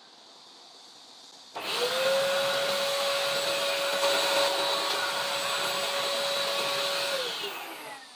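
A small high-speed electric motor, used to clean the greasy keyboard, spins up about a second and a half in with a rising whine. It runs steadily for about five seconds, then spins down with a falling whine near the end.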